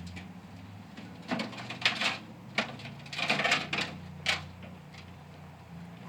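Parts of a microwave being worked apart: a handful of short clattering knocks and rattles of its metal and plastic, with a longer rattle about three seconds in.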